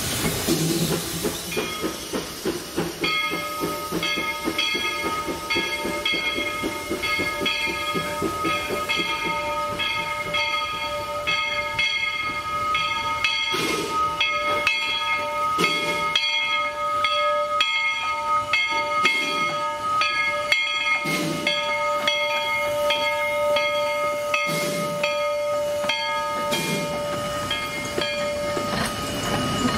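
A two-foot gauge steam train passing slowly: steam hissing, with low exhaust puffs every few seconds. A steady, high-pitched ringing of several tones runs through most of it, starting about three seconds in.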